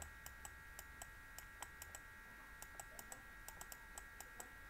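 Faint, irregular clicking, about four clicks a second, from a stylus tapping on a drawing tablet as words are handwritten. A faint steady electrical whine runs underneath.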